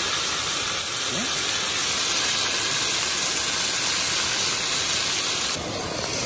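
Marinated lamb sizzling in a hot double-sided grill pan as more pieces are laid in, a steady hiss that thins out about five and a half seconds in.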